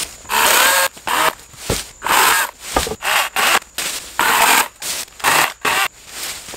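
Wild Badger Power 40-volt battery chainsaw cutting small branches in short trigger bursts, about two a second. There are two dull thumps about two and three seconds in.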